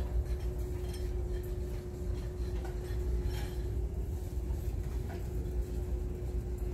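Shop-floor ambience picked up by a handheld phone: a low rumble with a steady hum running through it, and a few faint clicks.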